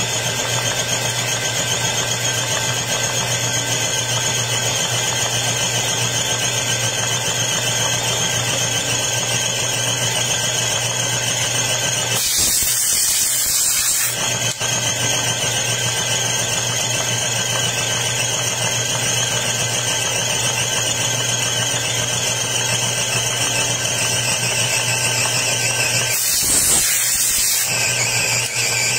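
Small air compressor running with a steady whine. Twice, at about twelve seconds in and again near the end, compressed air hisses loudly from a blow gun in short blasts of a second or two.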